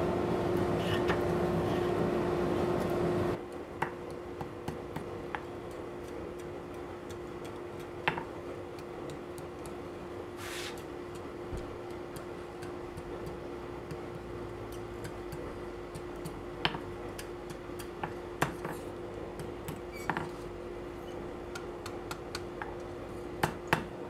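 Scattered light metallic taps and clinks, about a dozen spread irregularly, from a hammer and tongs on an anvil as a thin hot mild-steel tip is scrolled into a curl. Under them runs a steady low hum that is louder for the first few seconds and drops suddenly.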